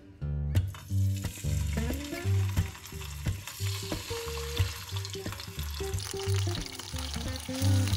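Marinated chicken wings sizzling in hot sunflower oil in a nonstick frying pan as they are laid in. The sizzle starts just under a second in and grows louder from about halfway as more wings go in. Background music with a steady bass line plays underneath.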